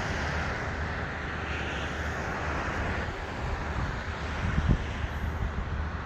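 Steady seaside ambience: a low rumble under a soft hiss, with small waves washing onto a stone shore.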